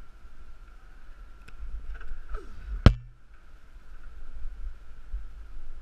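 Rustling and rumbling from a climber moving on the wall, heard through a body-worn action camera, with one sharp knock about three seconds in.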